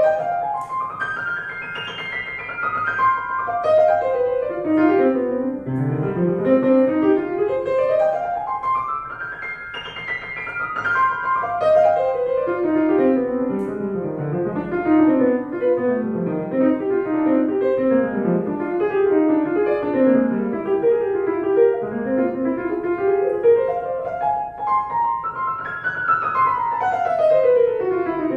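Piano playing fast runs of notes that sweep up and down the keyboard, ending in a long descending run.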